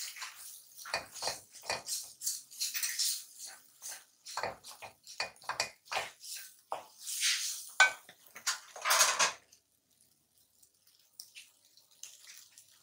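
Wooden spatula scraping and knocking against a metal pan while stirring frying shredded chicken, in short, irregular strokes that stop about three-quarters of the way through.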